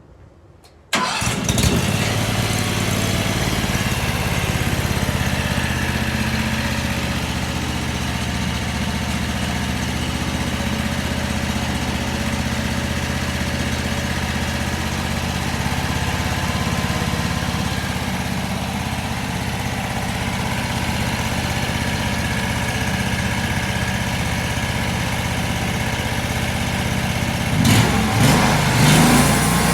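Homemade band sawmill's engine running steadily as the mill cuts a log, starting abruptly about a second in. Near the end its pitch dips and swings briefly.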